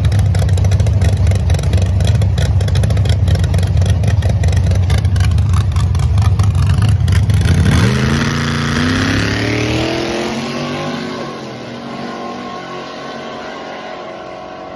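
A drag-racing square-body pickup's engine runs loud and choppy at the starting line. About eight seconds in it launches, the revs rising in steps through the gear changes, and the sound fades as the truck pulls away down the track.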